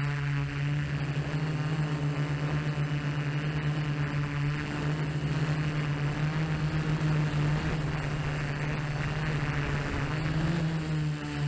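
Hovering drone's motors and propellers, a steady whine with a constant pitch, heard from the camera on the drone itself.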